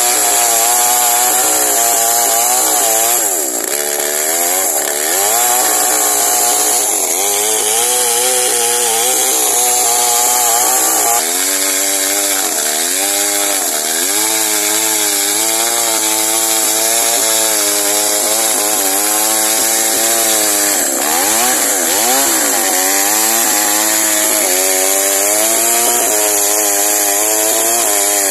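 Two-stroke petrol chainsaw at full throttle ripping a log lengthwise, cutting along the grain. The engine note sags as the chain bogs in the cut and climbs back several times.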